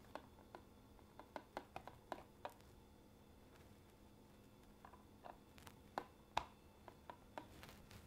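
Faint, scattered clicks and taps of a probe cable being plugged into a handheld dissolved-oxygen meter and the plastic meter being handled, in two short clusters with the sharpest click a bit past the middle, over a faint steady room hum.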